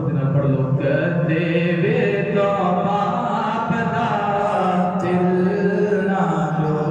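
A man's solo voice chanting an Islamic devotional recitation, unaccompanied, in long held melodic phrases that waver and turn around each note.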